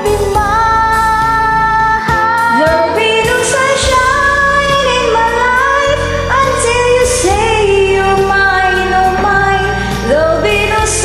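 A woman singing a slow pop ballad over a karaoke backing track.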